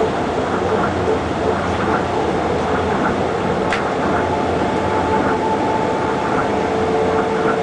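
Steady running noise of a moving vehicle, with a steady whine coming in about five seconds in.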